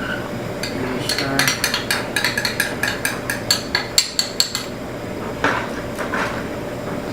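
A utensil knocked rapidly against the rim of a dish, about fifteen ringing clinks over three seconds, then two more single knocks: knocking the sesame-oil and red-pepper paste off into the pot.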